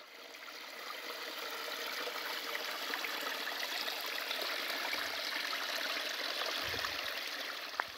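Small woodland brook running and trickling over rocks in little cascades, a steady rush of water that fades in over the first second.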